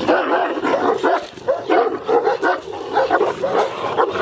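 Large shepherd dog barking rapidly and repeatedly, about three barks a second, with a few higher yelps among the barks.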